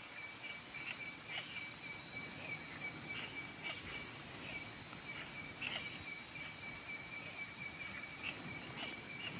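Night insects such as crickets chirping: two steady high-pitched drones with a lower, rapidly pulsing trill under them, and faint scattered ticks.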